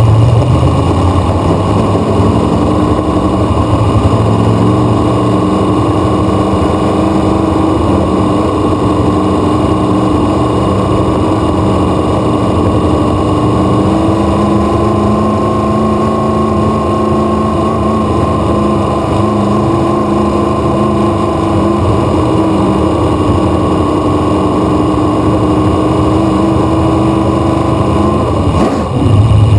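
Dirt-track race car's V8 engine running at low, steady speed, picked up close at the air cleaner so the intake is prominent; its pitch rises slightly about halfway through.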